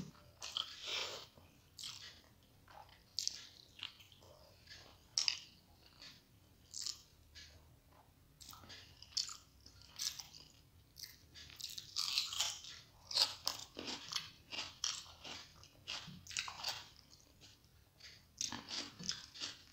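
Close-up mouth sounds of a person eating rice and egg curry with her hand: wet chewing and lip smacking in short, irregular clicks, busier in the second half.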